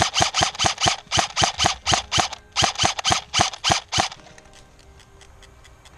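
Airsoft rifle firing a rapid string of single shots, about five a second, with a short pause about two and a half seconds in; the firing stops about four seconds in, leaving only faint distant shots.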